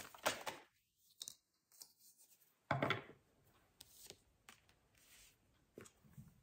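Tarot cards being handled and drawn from the deck: faint papery rustles and light clicks, with one louder rustle about three seconds in.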